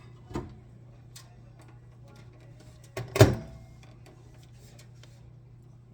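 Microwave oven running with a steady low hum, a few light clicks, and one sharp knock about three seconds in.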